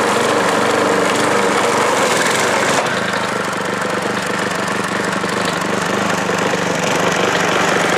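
Gas lawn mower running hard with a homemade wooden blade cut from a fence board, with wood splintering in the noise. About three seconds in, the sound turns slightly quieter and rougher as the wooden blade breaks up.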